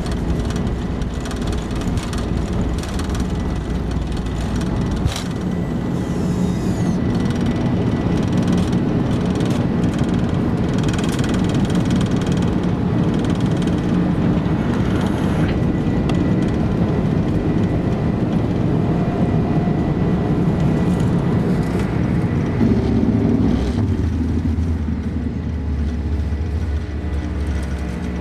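Jet airliner at takeoff thrust heard from inside the cabin, its engines running steadily with a faint high whine. The rumble of the wheels on the runway gives way about five seconds in as the aircraft lifts off into the climb, and a deeper rumble rises in the last few seconds.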